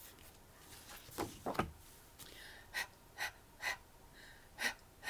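A woman making the letter sound "h" as short breathy puffs of air without voice, six times in two groups of three.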